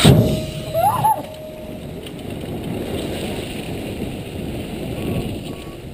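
BMX bikes rolling fast down the start hill just after the start gate has dropped: a steady rush of tyres on the track and wind on the helmet-mounted microphone. The gate's start tone carries on for about the first two seconds, and there is a short shout about a second in.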